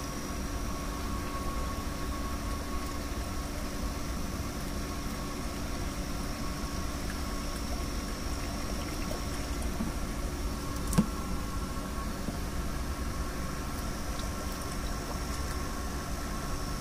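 A steady engine idling hum, with one sharp click about eleven seconds in.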